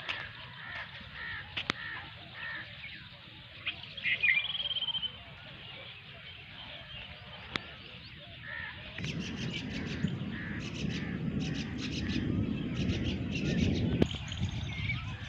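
Birds calling outdoors: repeated short chirps, with one louder harsh call about four seconds in. About nine seconds in, a steady low rushing noise with rapid crackling joins and runs on.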